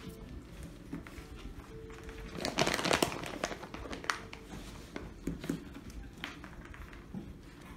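Irishdoodle puppies moving about a pen on a wooden floor: scattered light taps and clicks, with a louder rustling crinkle about two and a half seconds in.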